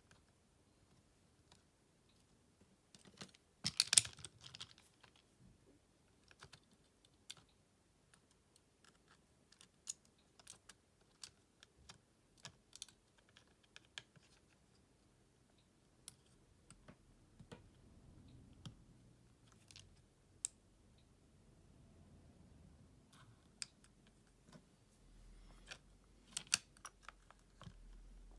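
Faint scattered clicks and taps of small repair tools and parts being handled while a Samsung Galaxy M31s smartphone is taken apart, with a louder cluster of clatter about four seconds in.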